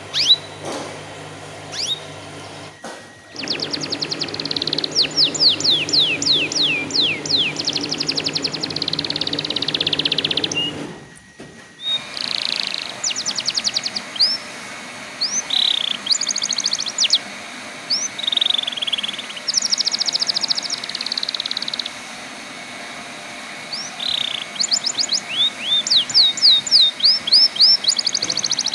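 Domestic canary singing: rapid trills of repeated quick falling notes in phrases of a few seconds, broken by short pauses. The song cuts out briefly about eleven seconds in.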